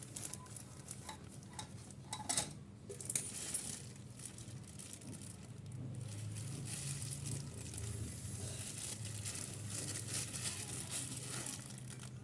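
Hiss of compressed gas blowing flushing fluid through a refrigerator's refrigerant pipes, louder from about halfway, with a few metallic clinks near the start.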